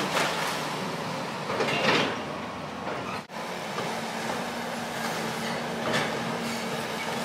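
Tracked excavator at demolition work, its diesel running while timber and corrugated-metal debris crunch and clatter, with a few louder crashes about two seconds in and again near six seconds.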